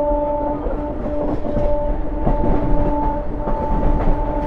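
Electric multiple unit train running at speed, heard from on board, its horn held on as one steady, continuous tone. Underneath it the train rumbles and the wheels knock irregularly over rail joints and points.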